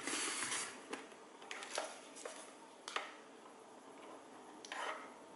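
Handling noise from a plastic box-style FPV goggle (Eachine VR D2) being moved and turned in the hands: rustling of the goggle and its strap near the start and again near the end, with a few light clicks and knocks in between, the sharpest about three seconds in.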